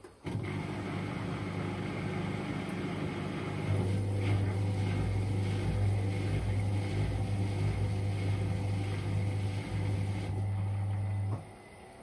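Indesit IWDD7143 washer-dryer tumble drying on cotton dry: the drum motor starts with a steady low hum, gets louder about four seconds in, and stops about a second before the end, one spell of the drum's tumbling.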